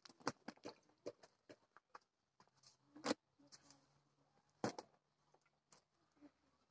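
Baked tandoor flatbreads with crisp crusts being lifted off the oven wall with a cloth and set down in a wicker basket: a run of light knocks, taps and rustles, with two louder knocks about three seconds and four and a half seconds in.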